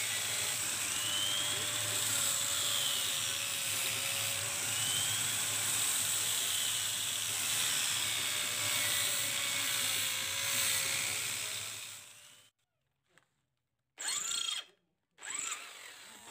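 A handheld electric power tool running under load on the steel of a golok blade, its pitch wavering a little as it works the metal. It cuts off about twelve seconds in, followed by two short bursts of sound.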